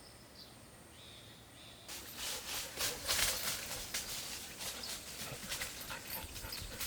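Birds chirping, then from about two seconds in a dense, dry rustling and swishing of rice stalks that carries on to the end.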